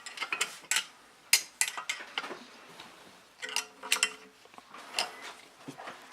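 Metal tools and small metal parts being handled, clinking and tapping against each other in a string of sharp separate clicks, with one brief metallic ring a little past the middle.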